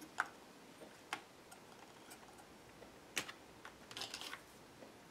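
Small found-object findings being handled, giving a few light clicks and taps, with a quick run of clicks near the end.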